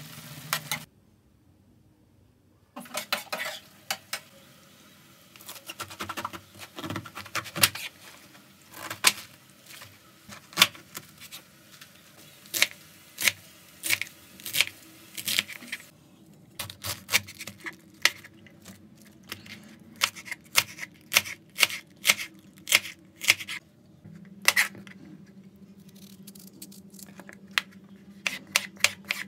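A kitchen knife chopping napa cabbage and then cucumber on a cutting board: repeated sharp knocks, sometimes in quick clusters and sometimes at a steady pace of about two a second. At the very start there is a moment of food sizzling in a frying pan, followed by a short silence before the chopping begins.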